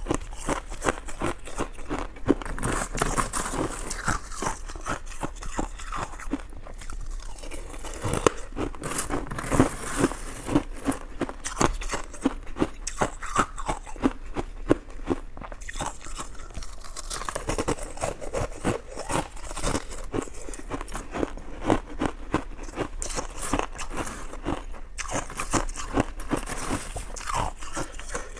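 Close-miked eating sounds: steady chewing with rapid, wet mouth clicks and smacks, many a second, as someone eats a soft, chewy sweet.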